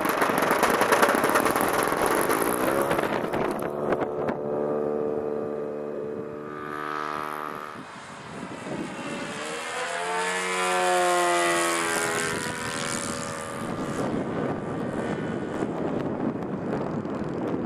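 Single-cylinder SC 91 four-stroke glow engine of a radio-control model plane running at high throttle, driving a three-blade prop. It is loud at first, close by on the takeoff run. Its pitch then drops as the plane flies away, and it rises and falls again as the plane passes back by in the air.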